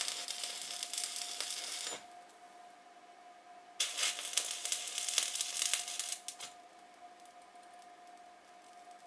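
Electric arc welding: the arc crackles in two bursts of about two seconds each, the second starting a little before the middle, as a steel square bar is welded to a round bar. A faint steady tone runs underneath.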